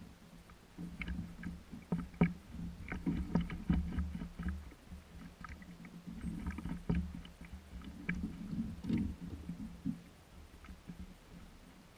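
Water slapping against a fishing kayak's hull as a low, uneven rumble, with bunches of short clicks and knocks from the rod, reel and boat as a fish is fought on the line.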